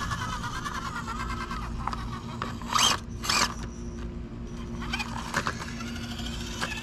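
Axial SCX24 RC rock crawler's drivetrain whining as it climbs rocks, the pitch rising and falling with the throttle. Two short, harsh scrapes come about three seconds in, half a second apart.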